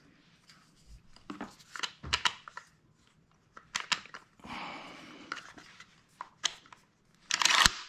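Handling clicks and knocks of a red dot sight and its loose mount as they are fitted to a shotgun's Picatinny rail, with a scraping rustle around the middle and a louder cluster of clicks near the end.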